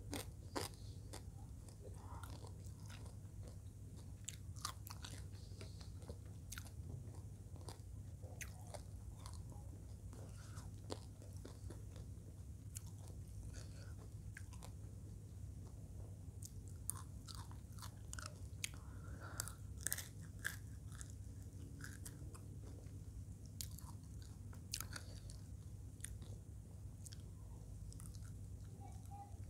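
Close-up mouth sounds of fried eel in chili sauce being bitten and chewed, with irregular sharp crunches, a cluster of them about two-thirds of the way through, over a steady low hum.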